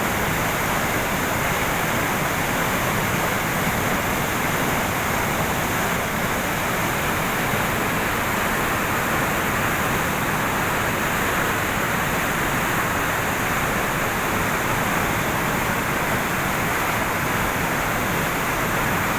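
Canal water in heavy monsoon flood pouring over a waterfall, a loud, steady rush.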